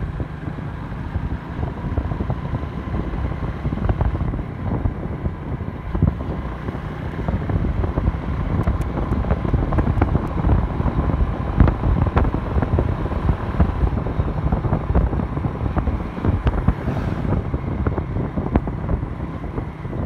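Wind buffeting the microphone of a moving motorcycle, over the steady running of the bike and its road noise.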